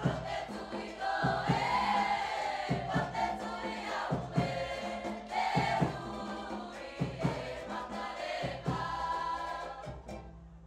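A Cook Islands song performed by a group of voices singing together, punctuated by sharp percussive hits. The singing dies down near the end.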